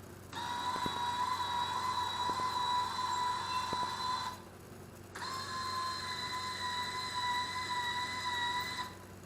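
Electronic buzzer of a table saw's digital password power control sounding two long steady beeps of about four seconds each, with a gap of about a second between them.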